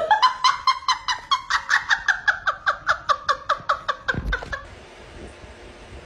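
High-pitched shrieking laughter, a fast run of short 'ha's at about four or five a second, broken near the end by a low thump. After that, only a steady faint hiss.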